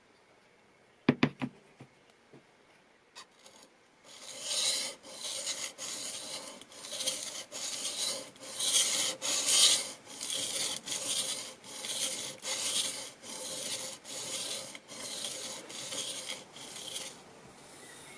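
A plane iron in a roller honing guide being pushed back and forth on an oiled sharpening stone, a rasping stroke about one and a half times a second. Before the strokes start, a few sharp clicks are heard as the blade and guide are set on the stone.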